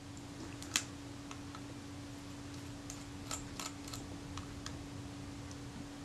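Light clicks and taps of small hand tools against a Kodak Retinette II film camera being dismantled: one sharper click near the start, then a scatter of lighter ones in the middle, over a steady low hum.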